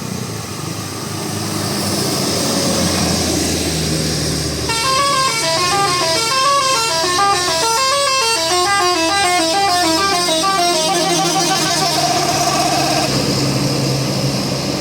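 Bus telolet horn playing a rapid melody of quickly stepping notes, starting about five seconds in and lasting about six seconds, then holding one wavering note for about two seconds. A vehicle engine runs steadily underneath.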